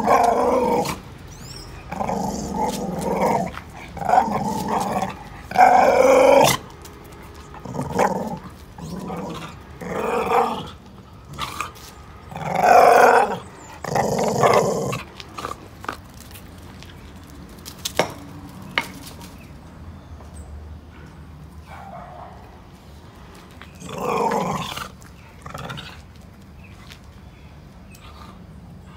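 Dog growling in a run of short grumbles through the first half, then a quiet stretch and a couple more growls near the end.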